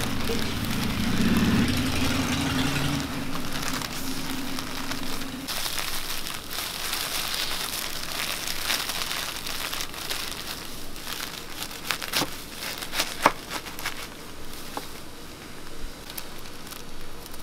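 Plastic wrap and gloved hands crinkling as a cotton-candy burrito is wrapped and pressed. A low steady hum runs under it for the first five seconds or so, and a few sharp taps come about twelve to thirteen seconds in.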